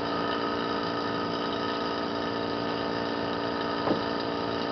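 Small oil vacuum pump running steadily, with an even, unchanging hum as it pulls vacuum on a vacuum bag over a resin laminate. A brief soft knock comes about four seconds in.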